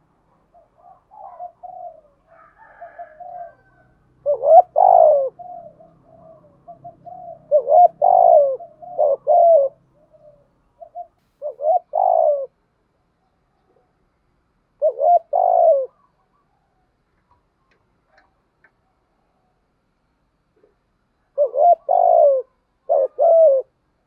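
Spotted dove cooing: soft low coos at first, then loud phrases of two or three coos every few seconds, with a pause of several seconds before the last phrase.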